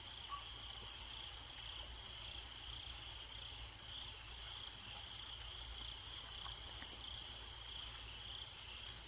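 Crickets chirring steadily and faintly, the chirps pulsing about twice a second, over a low hum.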